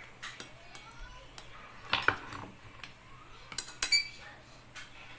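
A spoon clinking and scraping against a plate while filling is spooned into halved bell peppers, with sharper knocks about two seconds in and again near four seconds, the second with a short ring.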